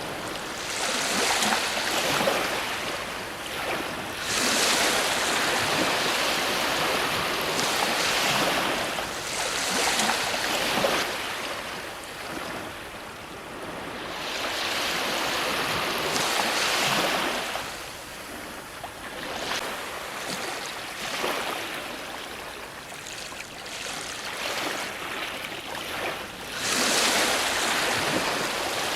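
Ocean surf breaking on a shore, the rush of water swelling and ebbing every few seconds, with a quieter lull in the middle before a strong surge near the end.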